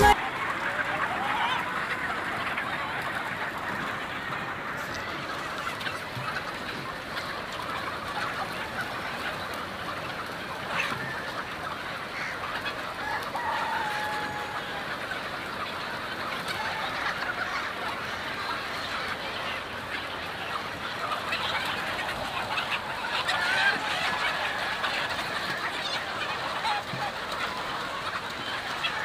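A flock of chickens clucking and calling, many overlapping calls at once, with a few longer drawn-out calls standing out.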